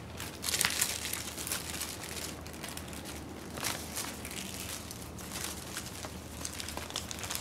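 Rustling and crinkling of materials being handled and placed, with scattered light taps, over a low steady hum.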